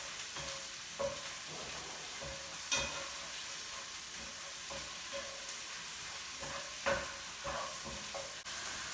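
Minced onion and garlic sizzling in hot oil in a frying pan while being stirred, the spatula scraping across the pan about every half second, with a few sharper knocks against the pan.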